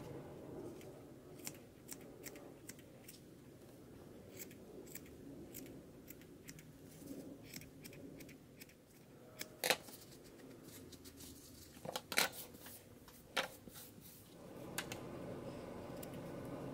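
Small scissors snipping at loops of curly fibre: a string of light, irregular snips, with a few sharper, louder cuts in the second half.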